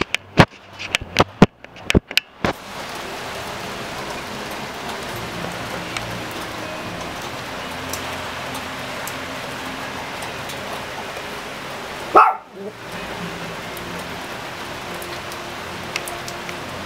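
Heavy rain pouring down steadily, with sharp knocks close by in the first couple of seconds. About twelve seconds in there is one short, loud pitched sound.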